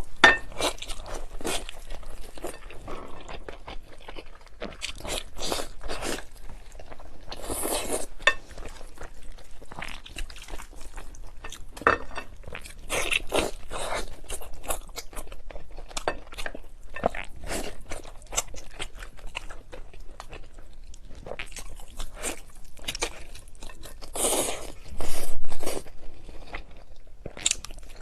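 Close-up crunching and chewing of bites of boneless pork chop, a string of irregular crisp crackles with one longer, louder crunch near the end.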